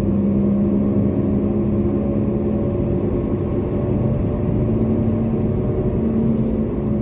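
Toyota Corolla driving at a steady speed: an even engine hum with tyre and road noise, heard from inside the cabin.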